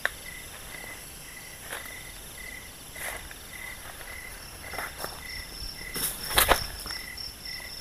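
Night insects: crickets chirping steadily a couple of times a second over a constant high buzz, with a second, higher chirp joining about halfway. A few short rustles and knocks of someone moving on a tarp break in, the loudest about six and a half seconds in.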